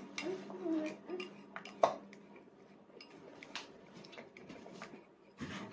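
Plastic training chopsticks clicking and scraping against a plastic divided plate as a toddler picks at rice, in scattered light taps; one sharp clack just under two seconds in is the loudest.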